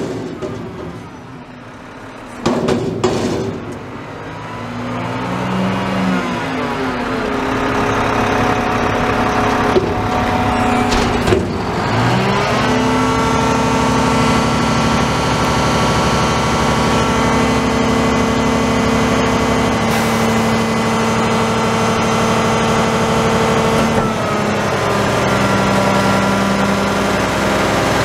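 A McNeilus garbage truck's engine revs up and holds a steady raised speed, with a steady whine over it, while the truck's hydraulics work. It eases off a few seconds before the end. A couple of metal knocks come near the start.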